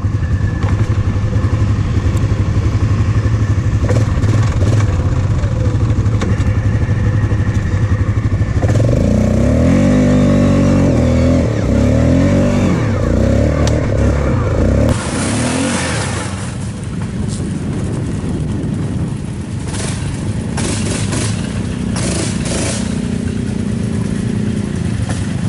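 2002 Yamaha Grizzly 660's single-cylinder engine running close-up under the rider, revving up and down for several seconds around the middle of its run. After a cut, ATV engines run as a quad churns through a mud hole, with a few sharp clatters.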